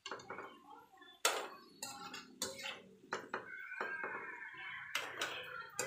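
A slotted metal spatula knocking and scraping against a frying pan as potato wedges are turned in oil: a run of sharp, irregular clinks.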